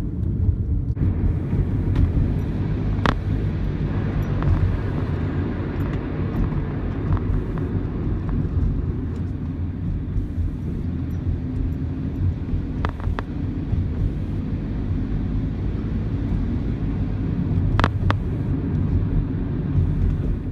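Steady low vehicle rumble, with a few sharp clicks or knocks.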